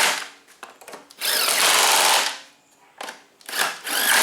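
A power drill running in short bursts of about a second each, with a motor whine that bends upward as it spins. It is used while the mower's cover is being refitted.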